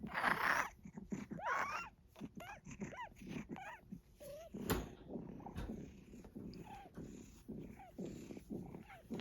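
A pet wheezing, a quick run of short raspy breaths with small high squeaks mixed in, and one sharp click about halfway through.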